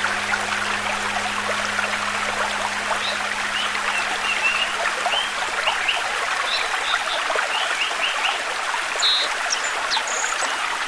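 Mountain stream water rushing steadily, with small birds chirping in short high notes through the middle and end.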